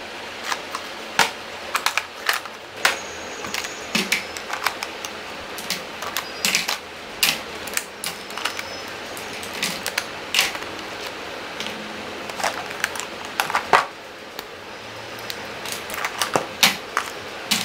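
Lipstick tubes clicking and tapping as they are picked up and set down while being sorted into a drawer organizer: many light, irregular clicks.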